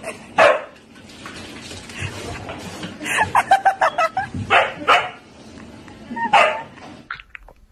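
A husky barking and yelping in short bursts, with a quick run of yaps about three seconds in.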